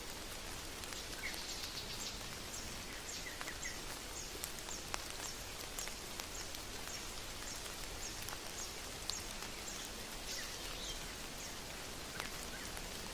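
Steady jungle rain with a run of short high chirps from a small animal, about two a second, that fades out near the end. A few sharp drips or clicks stand out here and there.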